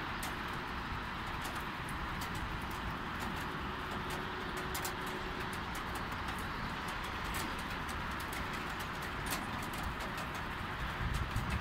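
Light rain falling: a steady hiss with frequent sharp ticks of raindrops striking a nearby hard surface, over a low background rumble.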